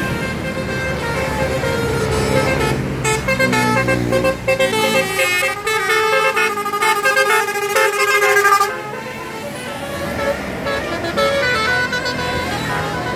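A bus's telolet horn, a multi-tone musical air horn, playing a quick string of changing notes over a running engine. The notes are loudest in the middle and cut off suddenly about nine seconds in.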